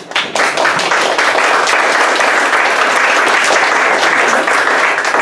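Audience applauding: dense clapping from many hands that starts just after the opening and holds steady.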